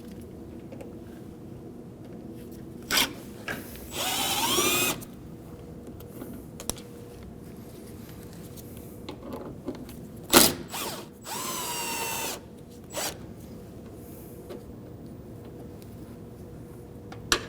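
Power drill-driver backing out the Phillips screws that hold the door latch, running in two bursts of about a second each with a rising motor whine. A sharp click or knock comes just before each run, and the second knock is the loudest sound.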